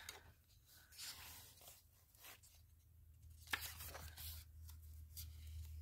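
Faint rustling of a paperback colouring book's pages being turned, with one sharp click about three and a half seconds in, over a low steady hum.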